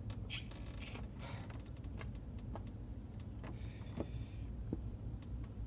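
Car engine idling steadily with a low hum, with scattered clicks and a few short hissing noises over it.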